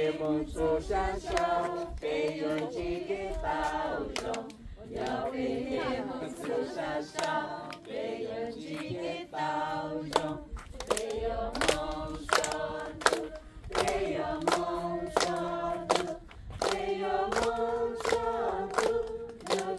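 A group of women singing together without instruments, clapping hands in a steady rhythm along with the song.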